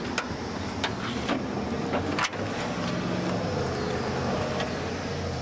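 1963 Volkswagen Type 2 bus's original 1500 air-cooled flat-four engine idling steadily, with a few light clicks over the top.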